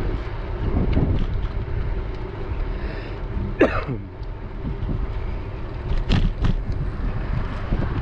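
Bicycle riding on a paved path: wind buffeting the camera microphone over a steady tyre rumble. A sharp rattle comes about three and a half seconds in, and a few more about six seconds in.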